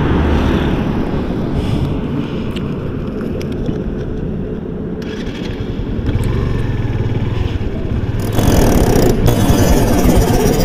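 Motorcycle engine running under way, with wind rushing over the microphone that grows louder from about eight seconds in.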